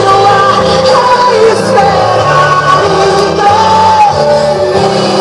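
Loud music with a voice singing held, gliding notes over a stepping bass line.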